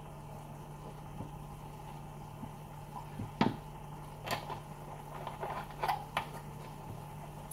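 Drinking from a large plastic drink bottle, then the bottle lowered and its plastic cap screwed back on. A few sharp clicks and crinkles of the plastic come between about three and a half and six seconds in, the loudest first. A steady low hum runs underneath.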